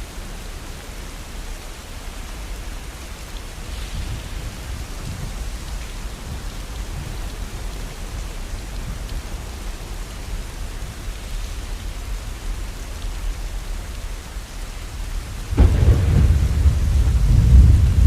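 Steady rain falling. Near the end a deep, loud rumble of thunder begins.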